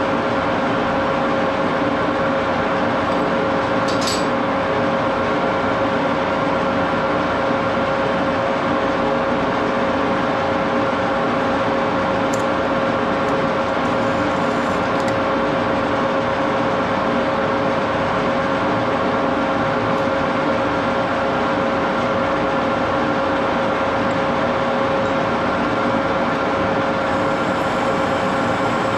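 1941 Axelson gear-head lathe running steadily under power, its geared headstock giving a constant whine of several held tones over a mechanical hum. A short click about four seconds in.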